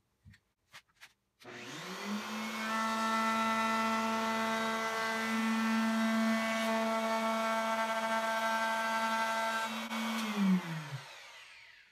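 Handheld router with a small chamfer bit cutting a chamfer along the edge of a wooden workbench top. After a few clicks, the motor starts about a second and a half in, rises in pitch to a steady high whine and runs, then is switched off and winds down with falling pitch near the end.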